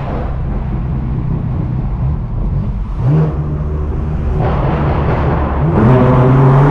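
Straight-piped BMW M4's twin-turbo inline-six, heard from inside the cabin, droning steadily at cruise. There is a brief swell of throttle about three seconds in, and near the end the engine pulls harder and gets louder as the car accelerates.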